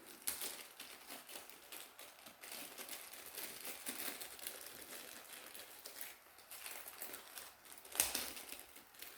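Plastic packaging crinkling and rustling as it is handled, with small irregular clicks and one sharper click near the end.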